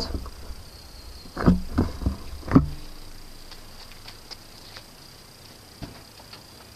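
A few dull thumps and knocks in quick succession, then quiet with a handful of faint clicks over a faint steady high whine.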